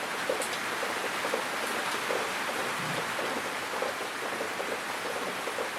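A steady hiss with many faint, irregular soft ticks scattered through it.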